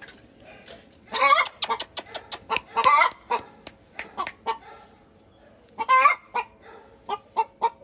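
Fowl clucking, with a few louder calls about a second, three seconds and six seconds in.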